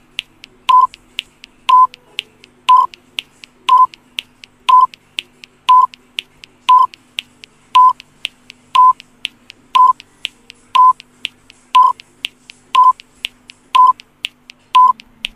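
Quiz countdown timer sound effect: a short electronic beep about once a second, with a softer, higher tick between the beeps.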